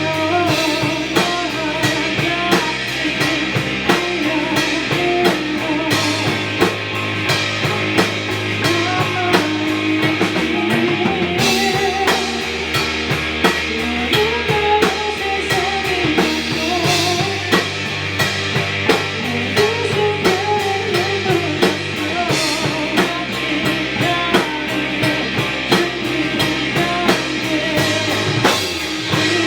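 A rock band playing: a drum kit keeps a steady beat with cymbals under bass and guitar, and no words are sung.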